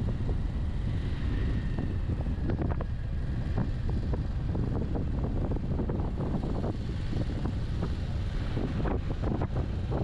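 Wind buffeting the microphone of a moving motorcycle, a Bajaj Avenger 160 Street, with the bike running underneath at a steady pace.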